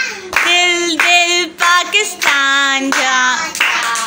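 A young girl singing unaccompanied in a high child's voice, with long held notes, while hands clap along.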